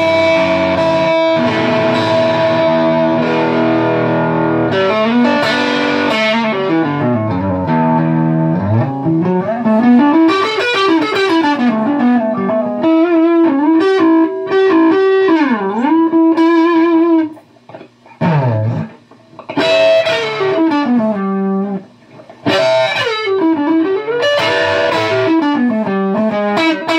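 Custom Thinline-style Telecaster electric guitar with twin humbucking pickups, played through a distorted high-gain tone: fast rising and falling runs alternating with held notes that waver with vibrato, broken by short pauses about two-thirds of the way through.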